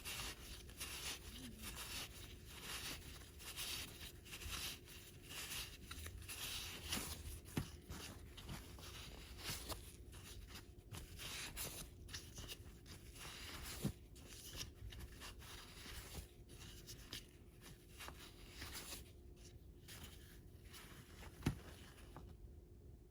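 Hands rubbing and squeezing a damp foam RC tire, a faint scratchy scrubbing in irregular strokes as the compound and dirt are worked out of the foam, with a few sharp clicks.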